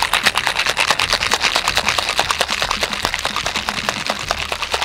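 Ice cubes rattling inside a metal two-piece cocktail shaker being shaken hard, a fast, unbroken clatter of knocks.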